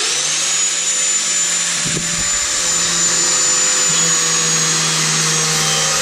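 Angle grinder with a wire wheel starting up, its whine rising quickly in pitch, then running steadily at full speed while it is used to brush limescale off an electric water heater element.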